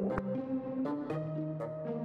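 Light background music: held notes with short notes sounding over them at an even pace.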